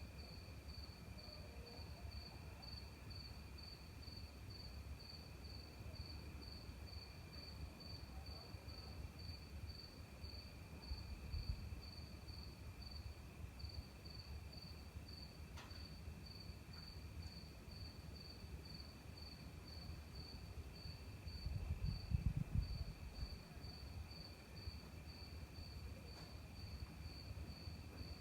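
Crickets chirping: one pulsing evenly at about three chirps a second over the steady trill of another. A low rumble underneath swells briefly about 22 seconds in.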